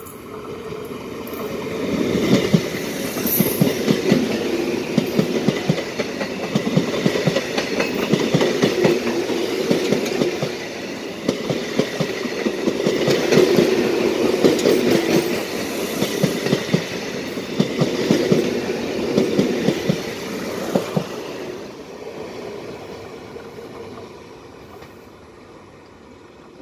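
ICF-built three-phase MEDHA electric multiple unit passing close by, its wheels clicking rapidly over the rail joints. The sound builds over the first couple of seconds as it arrives and fades away over the last few seconds as it recedes.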